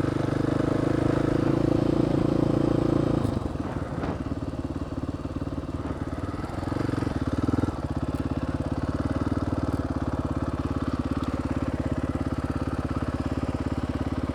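Dirt bike engine running steadily while riding, louder for the first three seconds or so, then easing to a lower, even note.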